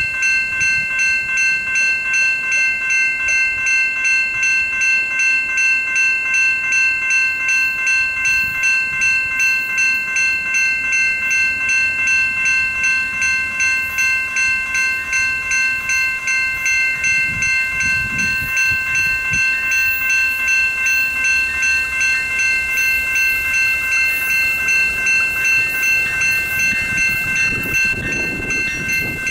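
Railroad crossing bell ringing steadily in an even, repeating rhythm while the crossing signals flash. Near the end a low rumble builds as a train approaches.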